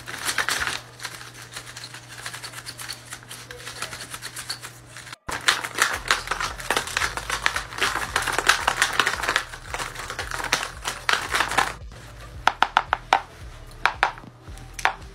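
Paper dragon puppets' folded paper jaws clacking shut over and over, a fast, irregular run of dry paper snaps that gets louder about five seconds in.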